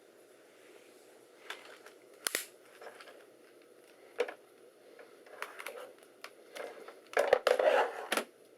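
Handling noises: scattered sharp clicks and short scrapes, then a louder crinkling, rustling stretch of about a second near the end.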